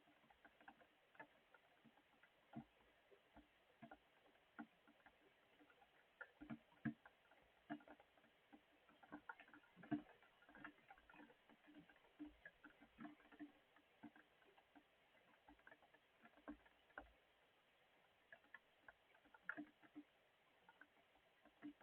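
Faint rain: single drops dripping and tapping at irregular moments, several a second, some landing louder than the rest.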